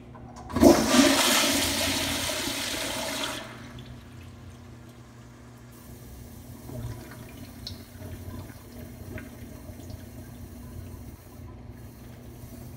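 Kohler Wellworth Pressure Lite pressure-assist toilet flushing: a sudden loud whoosh about half a second in that lasts about three seconds, then a quieter swirl of water as the bowl refills.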